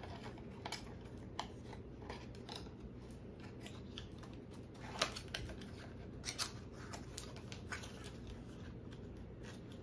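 Scattered light clicks and rustles of a perfume bottle and its cardboard packaging being handled, with a few sharper clicks about halfway through.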